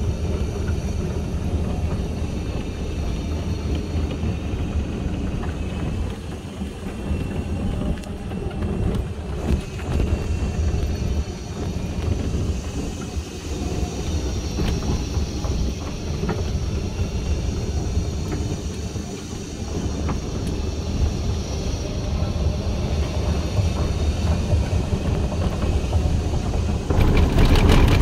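Buggy cart driving along paved paths: a steady rumble and rattle from the wheels and body, with a faint high whine that rises and falls with speed. Near the end it gets louder as the wheels roll onto a wooden boardwalk.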